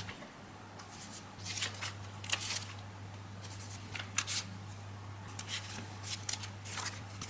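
Paper and sticker sheets being handled: short, crisp rustles and crackles scattered through, over a faint steady low hum.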